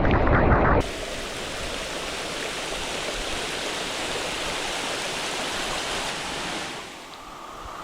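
Waterfall: a steady rush of falling water. About a second in the sound changes abruptly from a louder, bass-heavy rumble to an even hiss, and near the end it turns quieter.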